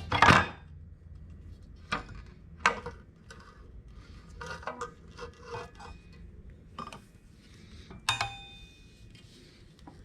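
Scattered metallic clinks and knocks of hand tools and metal engine parts being handled, with a quick cluster in the middle and one ringing clank about eight seconds in.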